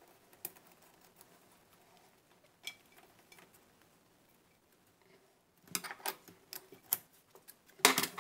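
Small metallic clicks and ticks of a threaded fitting being screwed together by hand: the compression nut of a stainless steel dishwasher supply line turned onto a brass adapter. A few scattered clicks early, a cluster about six to seven seconds in, and the loudest clicks near the end.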